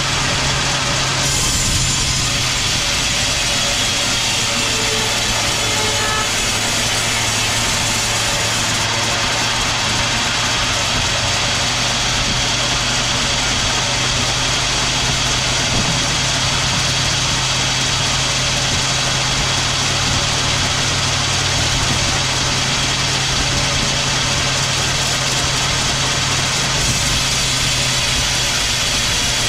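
Sawmill machinery running steadily: a constant engine or motor hum under an even mechanical noise, with no clear change in load.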